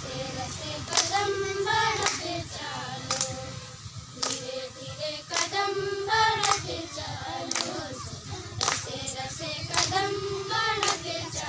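A group of girls singing a song together, with a sharp handclap about once a second keeping the beat.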